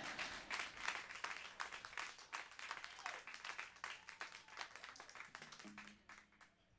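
Light applause from a small audience, individual claps audible, thinning out and stopping about six seconds in.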